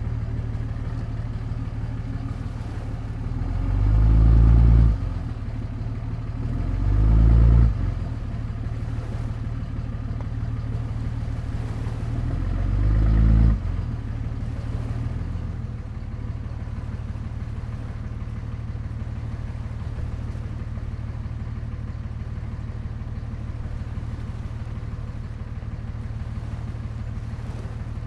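An engine running steadily with a low hum, swelling louder and higher three times as if revved or accelerating: about four seconds in, again about seven seconds in, and again near thirteen seconds.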